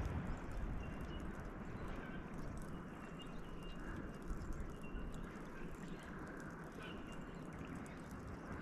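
Quiet waterside ambience on a wharf: a steady low rumble and soft hiss, with faint short high chirps every second or two.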